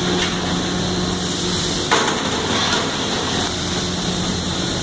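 Electric arc welding: a steady crackling sizzle over a low hum, with a sharp knock about two seconds in.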